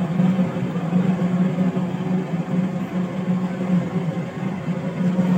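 Steady mechanical hum with a strong low drone and a noisy rush over it, running unbroken.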